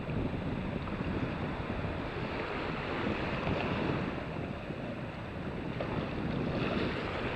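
Wind buffeting the microphone, gusting unevenly, over small sea waves lapping in the shallows.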